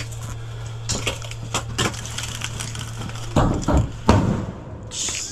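A run of sharp knocks and cracks, then two heavy thumps about three and a half and four seconds in.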